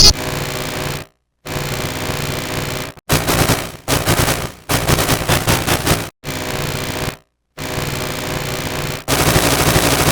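Bus air horn played as a run of short edited variations, each lasting one to two seconds with brief silent gaps between them. Several are chopped into a fast rattling stutter, and the last, near the end, is the loudest.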